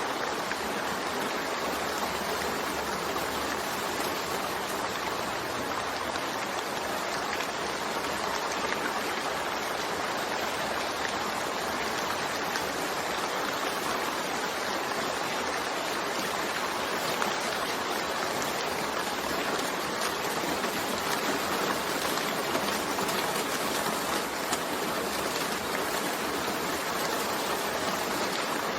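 Steady rain falling, an even unbroken hiss of many drops with no thunder.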